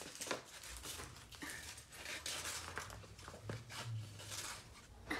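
Glitter shaken out of a plastic shaker bottle into a plastic tub: a faint, hissing rustle with scattered light taps.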